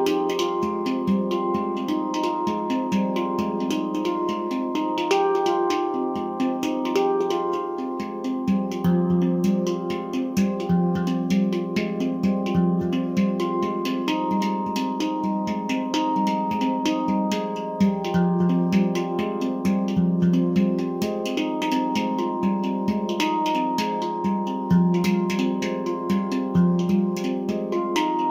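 Nimo Sounds handpan in an F low Pygmy scale, played with bare hands: a quick run of struck steel notes that ring on and overlap.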